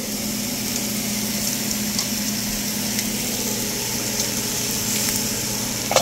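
Sliced onions, tomatoes and peppers sizzling in a frying pan, a steady hiss over a low hum, with a few light clicks. Near the end comes a sharp metal clack as a saucepan lid is handled.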